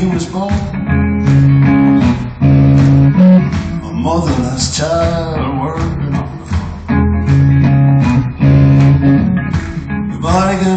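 Live band music heard from the audience in a large hall: guitar and bass playing held notes and chords, with a voice singing in short phrases a few seconds in and near the end.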